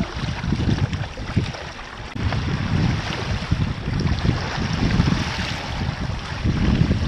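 Wind buffeting the microphone of a Hobie sailing kayak under sail, with water rushing and splashing along the hull. The low wind rumble eases briefly about two seconds in.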